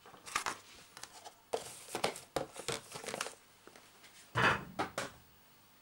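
Margarine being scraped out of a plastic tub with a utensil and dropped into a glass bowl of flour: irregular scrapes and plastic rustles, the loudest a little past four seconds.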